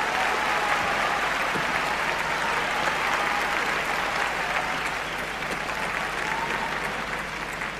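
Arena crowd applauding, slowly dying down.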